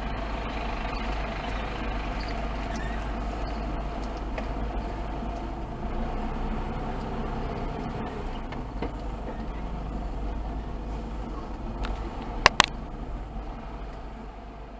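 Steady engine and road rumble of a taxi driving along, heard from inside the cab. Two sharp clicks close together near the end.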